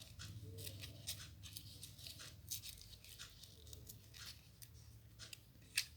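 Scattered light crackles and ticks of ribbon and cardboard being handled during wrapping, with one sharper click near the end.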